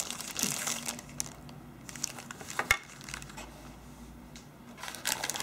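Clear plastic bags wrapped around spare phone battery covers crinkling as they are handled, with a single sharp click about two and a half seconds in.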